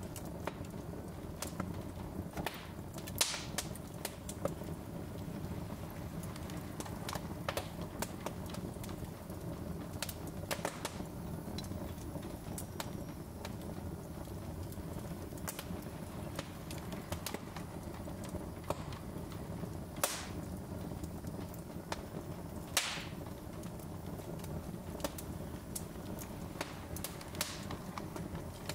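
Wood fire burning on a fireplace grate: a steady low rush of flame with scattered crackles and a handful of sharper pops from the burning logs.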